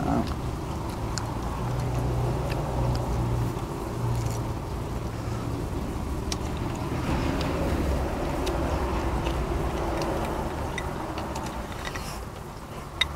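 Steady low rumble, like a motor running nearby, with scattered light clicks of chopsticks against bowls and dishes and one sharper clink near the end.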